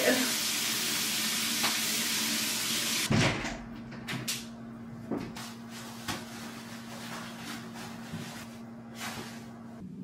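Shower running, a steady hiss of spray, which stops abruptly about three seconds in. Then a quieter bathroom with a low steady hum and a few light knocks and clicks.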